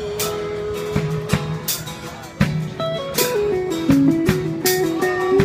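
Live rock band playing guitars and drums, with cymbal and drum hits throughout. A lead part holds one long note, then steps down through a quick run of notes about three seconds in before settling on a held note again near the end.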